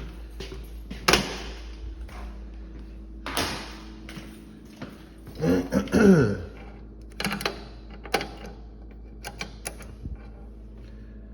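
Scattered clicks and knocks from hands working with tools and parts, with a short squeak that falls in pitch about six seconds in, over a steady low hum.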